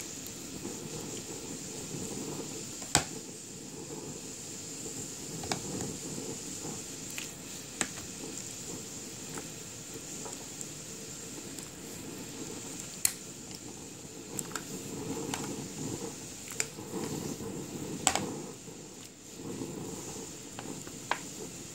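Pot of water at a rolling boil with raw chicken pieces blanching in it, bubbling steadily. Now and then a short sharp click of metal tongs against the pot, the clearest about three seconds in, around thirteen seconds and around eighteen seconds.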